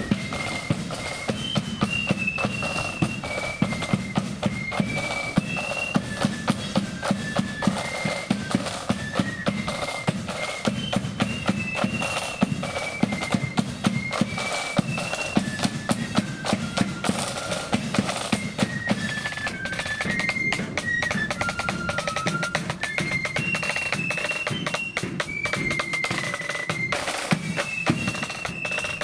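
Blood-and-thunder marching flute band playing a march: flutes carry a high tune over snare drum rolls and bass drum beats.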